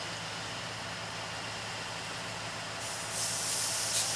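Heavy trucks' diesel engines idling steadily; about three seconds in, a hiss of compressed air from truck air brakes comes in for a second or so.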